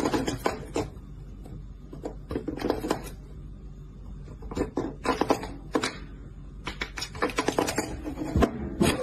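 Plastic desk cable-grommet cap rattling and clicking against the desktop as a cat pushes and paws it from beneath through the cable hole: repeated bunches of short taps and knocks over a low steady hum.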